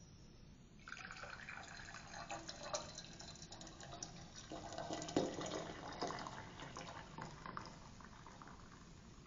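Brewed coffee being poured in a stream into a double-walled glass, a faint splashing trickle that starts about a second in and thins out near the end.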